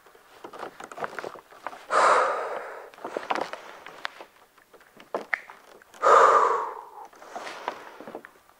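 A woman breathing hard through loaded squats: a forceful exhale about two seconds in and another about six seconds in, with small knocks and clicks between.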